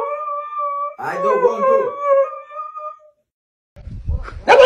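Siberian husky howling and 'talking' in drawn-out, wavering howls, two phrases that stop about three seconds in. Near the end a loud, noisy sound of another kind starts.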